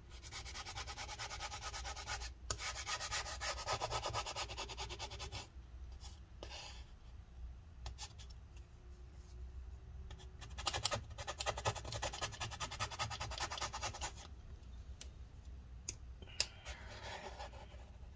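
Fast, scratchy scrubbing and scraping of alcohol-softened old battery adhesive on a MacBook Pro's aluminium case, stripping off the residue before a replacement battery goes in. It comes in two long bouts of rapid strokes with softer rubbing between them, and a single sharp click near the end.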